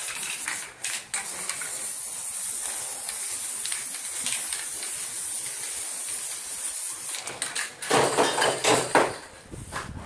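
Aerosol spray can hissing steadily for about seven seconds as clear sealer is sprayed over a finished spray-paint painting. Near the end the hiss stops and a few loud knocks and clatters follow.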